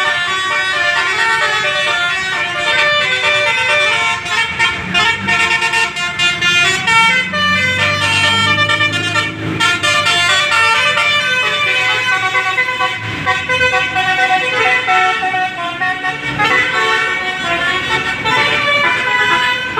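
Bus "telolet" horn: a set of multi-tone horns playing a fast tune of stepping notes without a break. A low rumble sounds underneath for a few seconds in the middle.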